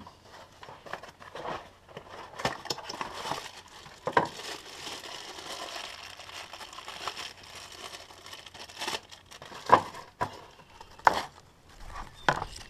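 Hands handling parts and packaging during a coil-pack job: crinkling and rustling for several seconds, with scattered sharp clicks and knocks, the loudest about three-quarters of the way through.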